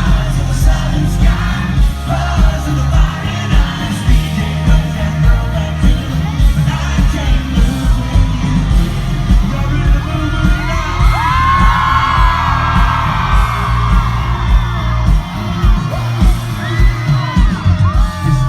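Live country concert recorded from the crowd: a band plays loudly with heavy bass while singing rises over it, and the crowd yells and whoops.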